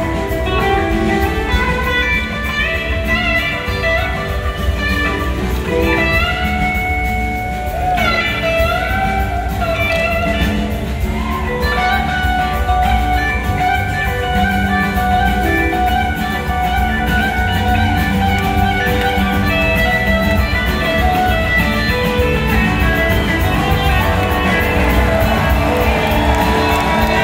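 Blues-rock band playing live, heard from the audience: electric guitars over bass and drums, with a lead guitar line whose notes glide and bend.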